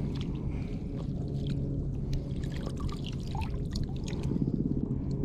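Shallow water sloshing and trickling around someone wading, with small scattered splashes and clicks over a steady low rumble.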